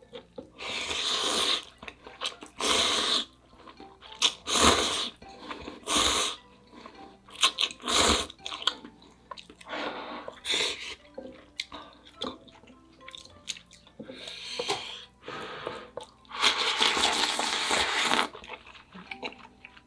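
Spicy ramen noodles slurped in a series of long sucks, with wet chewing and small mouth clicks in between. The longest slurp comes near the end.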